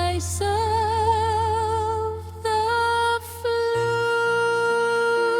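Song outro: a wordless female vocal holding long notes with vibrato over a sustained low bass, with two short breaths between phrases.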